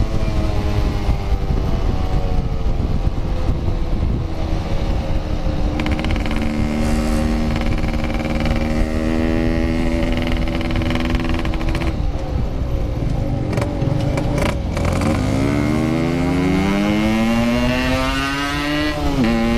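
Motorcycle engine running under way with steady wind and road rush: the revs hold fairly steady, fall away about twelve seconds in, then climb steadily in pitch and drop sharply at a gear change near the end before climbing again.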